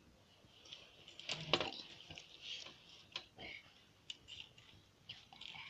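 Butter slime being pressed and handled by hand, with faint sticky crackles, soft squishes and a few light clicks, some likely from a small container.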